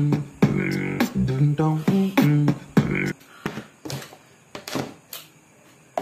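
A beatboxed vocal music jingle, sung notes over a rhythmic beat, that cuts off suddenly about halfway. Faint scattered clicks and taps follow, with a sharper click near the end.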